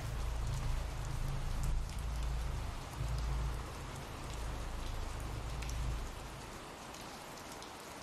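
Steady rain falling, a recorded ambient rain bed with a constant hiss and scattered drop ticks. A low rumble underneath fades out about six seconds in.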